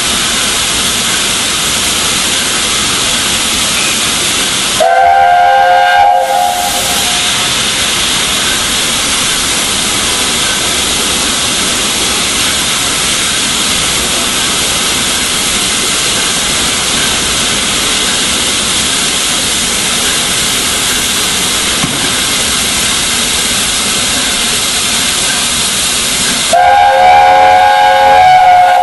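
An LNER A4 steam locomotive hisses loudly and steadily as steam escapes. Its chime whistle sounds twice, a short blast about five seconds in and a longer blast near the end.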